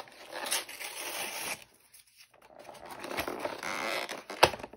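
Cardboard-and-plastic collection box being opened by hand: scraping and tearing of the packaging in two stretches with a short pause about halfway, then one sharp knock near the end, the loudest sound.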